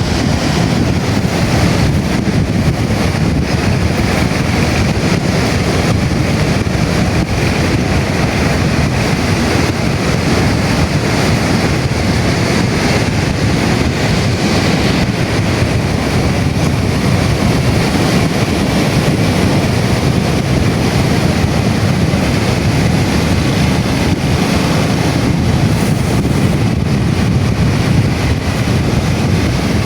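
Strong sea wind buffeting the microphone over the wash of waves on a sandy beach, a steady low rumbling noise that keeps up without a break.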